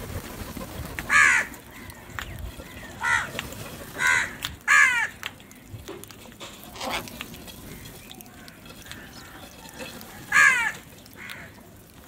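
A flock of house crows cawing: about seven harsh caws at irregular intervals, three of them loud.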